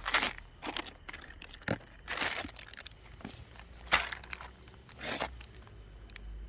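Plastic litter crinkling and crunching in irregular bursts as it is handled and gathered up.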